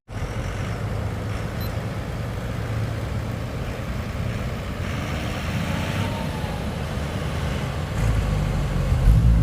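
Twin four-stroke outboard engines idling with a steady low drone that gets louder about eight seconds in.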